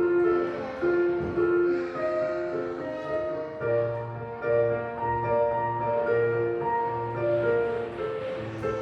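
Street piano being played: a slow melody in held notes over repeated low bass notes.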